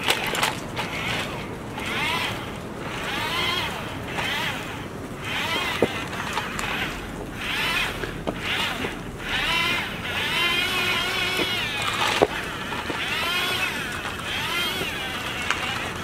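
Small electric gear motors of remote-control toy construction vehicles whining in short bursts, their pitch rising and falling as the arm and wheels are driven, with a couple of sharp plastic knocks.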